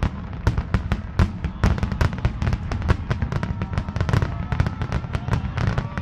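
Aerial fireworks display: many shells bursting in rapid, overlapping bangs and crackles, a dense barrage with no pause.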